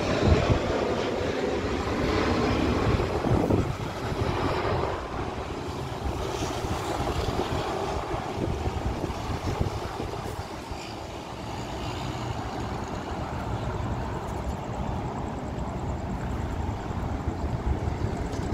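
Jet engines of a Boeing 737 MAX 8 (CFM LEAP-1B turbofans) passing overhead on approach to land. The engine noise is loud at first, drops off after about four seconds, and fades to a steady distant rumble.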